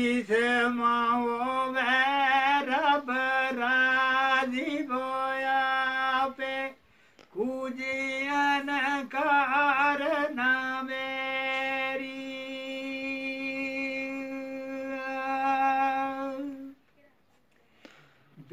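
An old man singing unaccompanied, hands cupped over his ears, in long phrases of held notes with wavering ornamented runs. The voice breaks off briefly about seven seconds in and stops again near the end.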